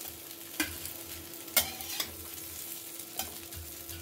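Oil sizzling steadily in a kadhai as fried steamed masoor dal fritters are scooped out with a spatula, the spatula knocking against the pan about four times.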